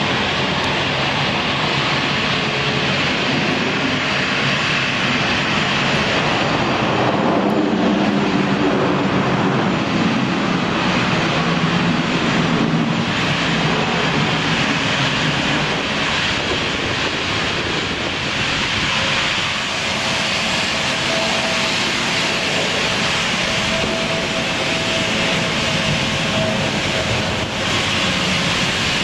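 Steady noise of jet airliner engines as airliners taxi and roll along the runway, with a low rumble swelling a quarter to halfway through and a faint steady whine joining about two-thirds of the way in.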